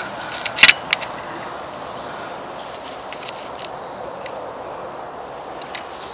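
A small bird singing short, quickly falling trills, twice near the end, over a steady background hiss. A few sharp clicks just under a second in are the loudest sounds.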